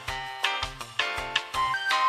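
Music with a steady beat: sharp hits about every half second over pitched notes and a bass line, with a high steady tone coming in near the end.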